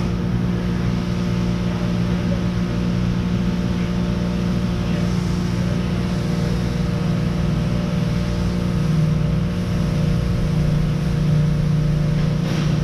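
Steady low machine hum with a strong droning tone, unchanging apart from a second, slightly lower tone joining about nine seconds in.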